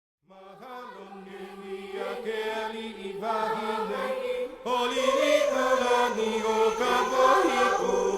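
Background music fading in: choral vocal chanting with voices holding long, wavering notes over a low sustained drone, growing louder about halfway through.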